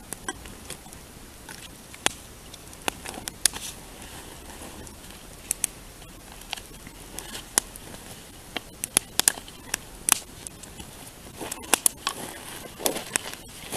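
Wood fire crackling and popping: irregular sharp snaps, some loud, scattered through the whole stretch over a soft hiss.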